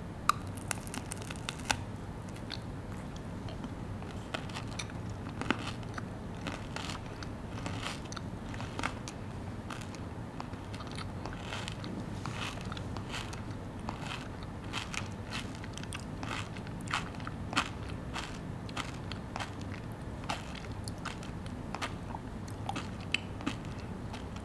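Biting into and chewing a Dubai-style chocolate bar with a crispy kunafa filling, making many small irregular crunches throughout.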